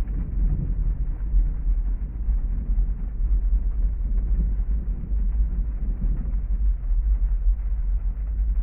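Heavy rain heard from inside a parked car's cabin: a steady, muffled low rumble with no sharp drops audible.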